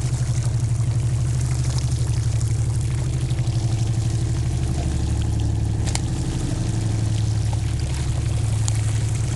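Fishing boat's engine running steadily with a fast, low throb, and water pouring from an outlet in the hull and splashing into the sea. A single sharp knock about six seconds in.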